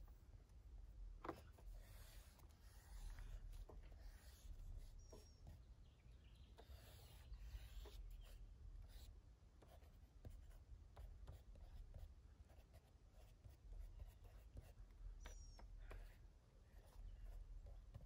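Faint scratching of a pen drawing on a paper sketch pad: a run of short strokes with small pauses between them.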